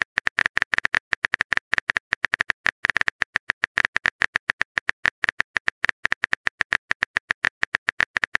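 Phone keyboard typing sound effect: a rapid, even run of short, bright clicks, several a second, one per letter as a text message is typed out.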